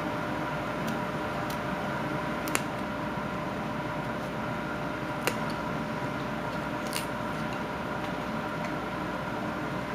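Carving knife cutting into a wooden carving, a few sharp clicks as the blade takes small cuts, over a steady background hum.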